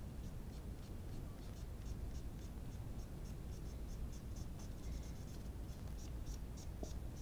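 Cotton swab rubbed briskly back and forth over a small plastic model part, making short scratchy strokes about three a second that get louder in the last couple of seconds.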